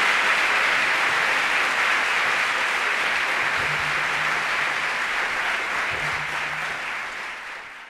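Theatre audience applauding steadily, the clapping fading out over the last couple of seconds.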